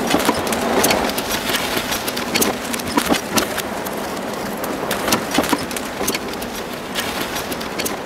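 Wooden bullock cart rolling on a dirt track, its wheels and frame rattling with irregular knocks and clacks, along with the ox hooves stepping.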